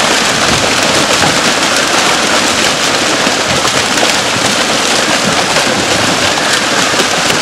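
A mass of large fish thrashing and leaping inside a tightened net: loud, dense, continuous splashing and slapping of water.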